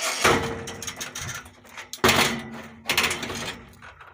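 Scraping and clanking of a rusty metal gate being handled, with two sudden loud strokes about two seconds apart.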